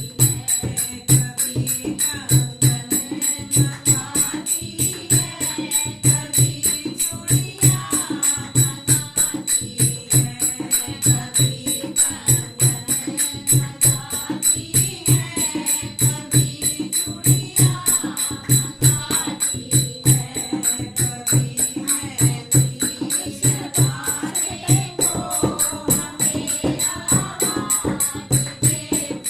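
Devotional bhajan music with a steady, driving percussion beat and voices singing.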